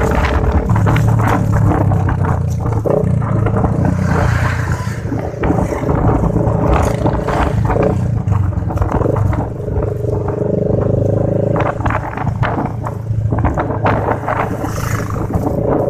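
Motorcycle engine running steadily while the bike is ridden along, with gusty wind rushing over the microphone.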